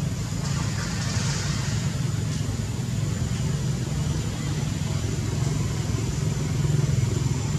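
Steady low droning rumble with an even hiss over it, unbroken throughout, like a motor or distant traffic.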